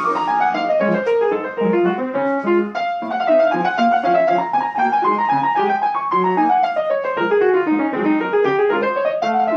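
Piano playing a flowing passage of quick runs, sweeping down in pitch early on and again after the middle, then climbing back up near the end.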